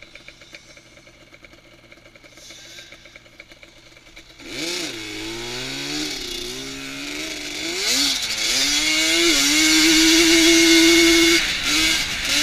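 ATV engine running low at first, then from about four seconds in accelerating with the throttle opened and eased several times. It climbs to a held high rev and lets off suddenly near the end, with a couple of short blips. A rushing wind noise on the microphone grows as the quad picks up speed.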